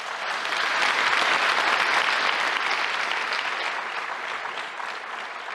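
Large seated audience applauding, swelling over the first second and slowly tapering off toward the end.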